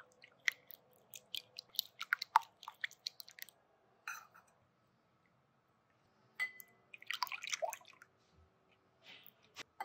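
Silicone-coated balloon whisk beating eggs in a bowl: quick, irregular wet clicks and taps. After a pause in the middle comes a second spell of whisking with liquid sloshing as cream is added.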